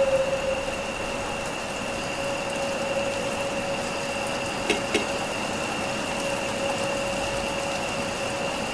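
Steady rain hiss with two constant tones held above it. About halfway through come two quick clicks of the front door's latch.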